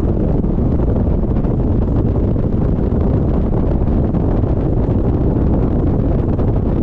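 Loud, steady wind buffeting on the microphone mixed with the road and engine noise of a BMW Z4 roadster driving at speed.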